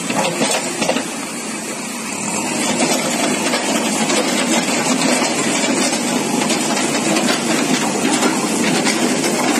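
JCB backhoe loader's diesel engine running steadily under a heavy hiss. It grows louder about two and a half seconds in.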